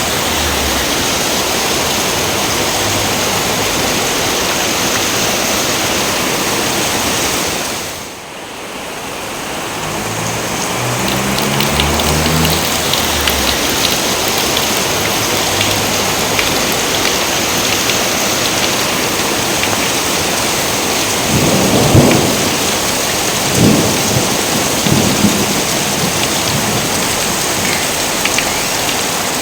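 Steady heavy rain falling, with low rumbles of thunder and, about two-thirds of the way in, a few sharp loud thunder cracks close together. The rain dips briefly and swells back up about a quarter of the way in.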